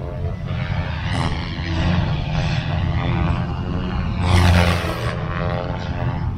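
Radio-controlled helicopter flying overhead: the whine of its rotor and motor rises and falls in pitch as it manoeuvres. It swells into a louder rushing sound about four seconds in.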